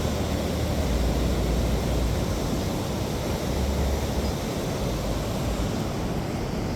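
Wind buffeting the microphone, a low rumble that swells and drops over a steady rushing background.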